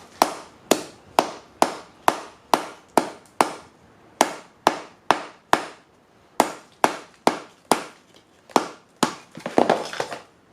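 Blacksmith's hammer striking a workpiece on a cinder block used as a makeshift anvil: sharp blows at about two a second, about twenty in all, with two short pauses, and a rougher, longer noise about a second before the end.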